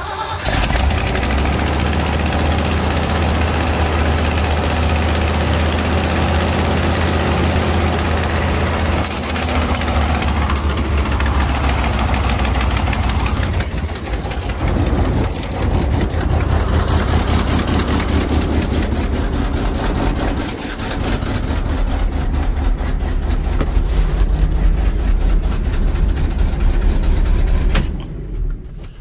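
Ford 370 big-block V8 of a 1980 Ford LN700 truck running with its carburetor open and air cleaner off, just brought to life on starting fluid and choke. The sound is steady apart from brief dips and drops off near the end.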